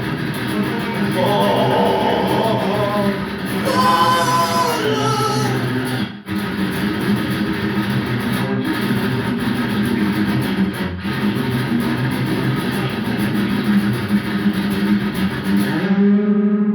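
Speed/thrash-metal band playing loud distorted electric guitar and bass, with singing over it in the first few seconds. About six seconds in the music briefly drops out. Near the end it resolves into one held, quickly pulsing guitar note.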